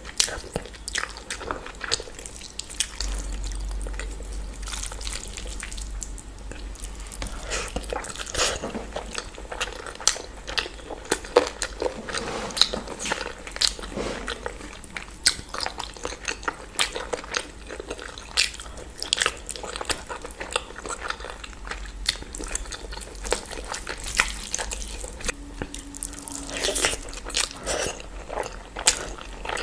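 Close-up eating sounds of a person chewing and biting into food, a steady run of irregular wet mouth clicks and small crunches.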